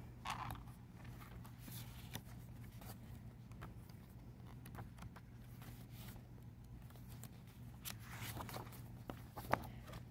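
Pages of a large photobook being turned by hand: faint paper rustles and swishes with small clicks, a clearer page-flip right at the start and another around eight seconds in.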